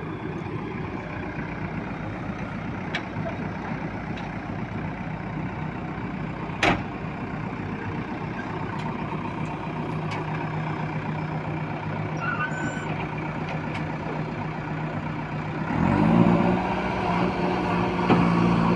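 Backhoe loader's diesel engine running steadily while it loads a tipper truck, with one sharp knock about seven seconds in. Near the end the engine revs up and gets louder.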